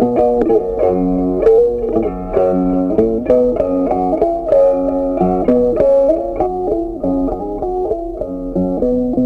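Background music: a plucked guitar melody with many quick notes at a steady pace.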